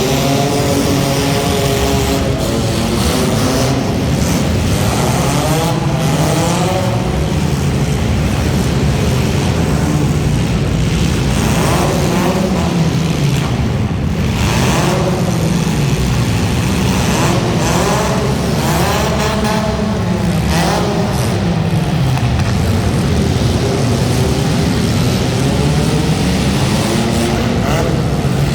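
Front-wheel-drive hobo stock race cars running, their engines revving up and down over and over as they race, loud and continuous.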